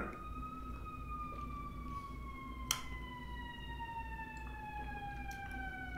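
Emergency vehicle siren wailing in the distance, one long tone that rises briefly and then falls slowly and steadily. A single sharp click sounds about three seconds in.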